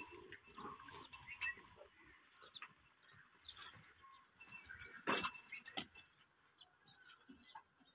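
Farmyard sounds around cattle: scattered knocks and clinks, with a louder short sound about five seconds in.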